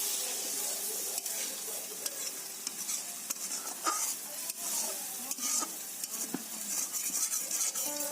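Fish curry sizzling in a cooking pan while it is stirred, the utensil scraping and clicking against the pan now and then.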